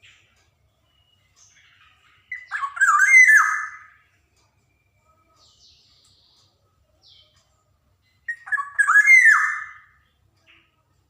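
Black-naped oriole (kepodang) calling: two short phrases of slurred, fluty whistled notes, one about two seconds in and one near the end, with a few faint notes between.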